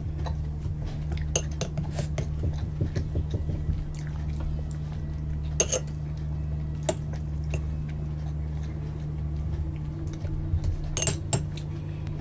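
A metal spoon scraping and clinking against a small bowl of milky syrup, in scattered sharp clinks with the clearest about five and a half seconds in and a close pair about eleven seconds in. A steady low hum sits underneath.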